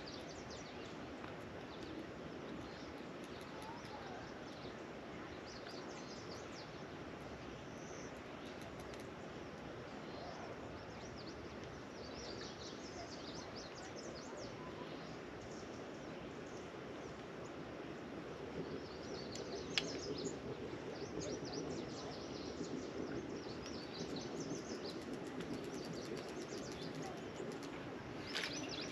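Birds chirping now and then over a steady background hiss of outdoor noise, with one sharp click about two-thirds of the way through.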